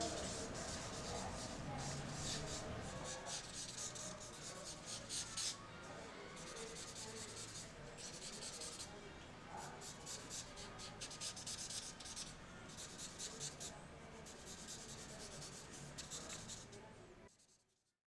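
Pen scratching across sketchbook paper in runs of quick drawing strokes over a faint low hum. It stops about a second before the end.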